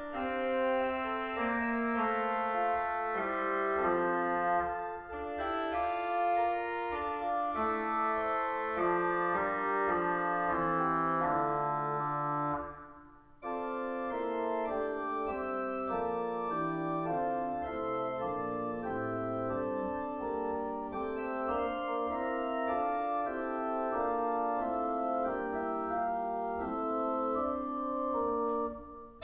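Organ music: sustained chords with a slowly moving line, pausing briefly about thirteen seconds in before carrying on.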